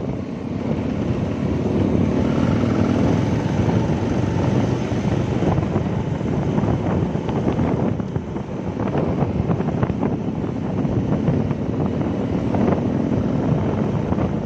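Motorcycle running at a steady cruising speed, heard from the rider's seat, with wind rushing over the microphone and road noise.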